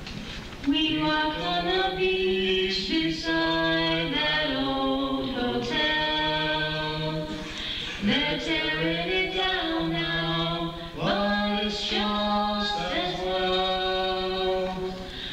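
A young man and a young woman singing a duet into handheld microphones, their two voices in harmony on long held notes, starting about a second in.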